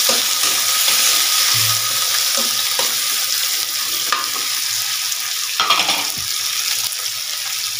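Garlic, onion, chili and bell pepper sizzling in hot oil in a metal wok. A metal spatula scrapes and knocks against the pan a few times as they are stirred.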